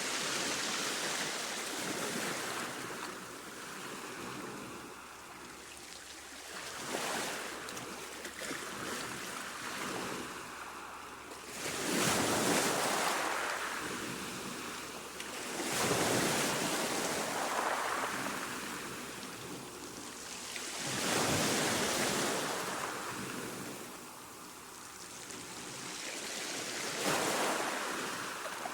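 Calm sea waves washing in and drawing back, rising and falling in a surge every four to six seconds, about six times.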